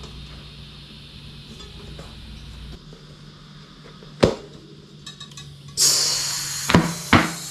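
Small clinks and knocks of hands working with tools and parts while fitting a tubeless bike tyre. A sharp click comes about four seconds in, and a loud hiss starts near the end, with two more knocks over it.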